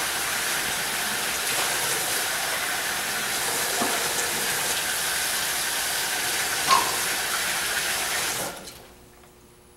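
Water running steadily from a tap, with a short clink about two-thirds of the way through; the flow shuts off abruptly near the end.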